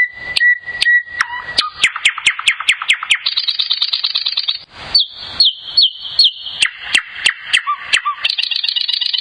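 Fly MP300 mobile phone ringtone of bird-like chirping. A held high whistle, then quick falling tweets about four a second, then fast warbling trills, the pattern changing every second or two.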